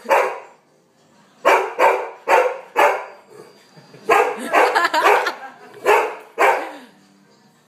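A dog barking repeatedly at a dog on the TV: about ten loud, sharp barks in quick bunches, then falling quiet near the end.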